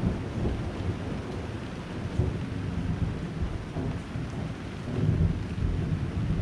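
Thunderstorm: a low rumble of thunder over wind and rain, swelling again about five seconds in.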